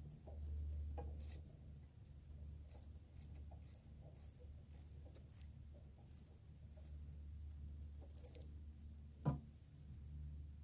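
Socket ratchet clicking in short, irregular spells as the water pump bolts are loosened, with one sharp knock about nine seconds in, over a low steady rumble.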